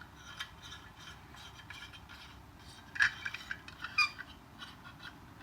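Small aluminium stand parts being handled and fitted: scattered light metallic clicks and clinks, with two sharper clinks about three and four seconds in.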